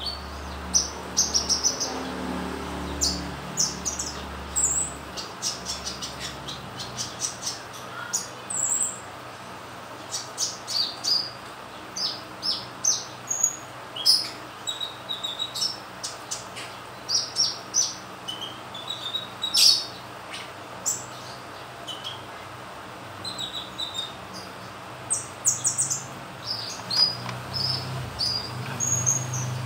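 Sunbird singing vigorously: quick clusters of high, thin chirps and short trills, broken by brief pauses.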